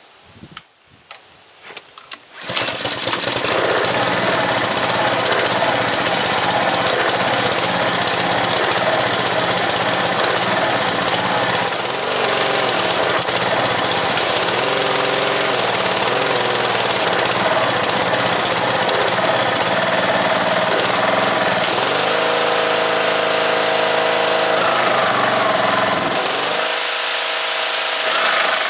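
Gas-engine Ryobi pressure washer running steadily with the hiss of the high-pressure spray, starting suddenly after a few faint clicks. The engine note shifts a few times near the end.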